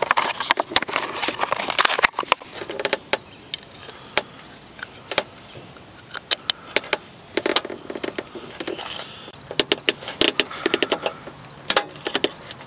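Crinkling of a plastic blister package being opened, then scattered sharp plastic clicks and rustles as a license plate light lens is twisted onto its bulb housing and snapped into a bumper.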